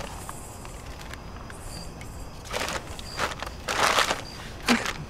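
Rustling and crinkling as things are handled, in a few short bursts in the second half, over a low steady background rumble.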